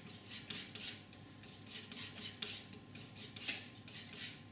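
A flexible painting knife scraping and smearing oil paint across a palette, mixing a colour in short repeated strokes, two or three a second.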